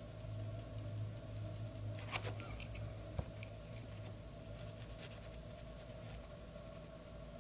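Faint clicks and taps of a watercolour brush working in the water bowl and paint pans: a quick cluster about two seconds in, a sharper tap a second later, then scattered light ticks, over a steady low hum.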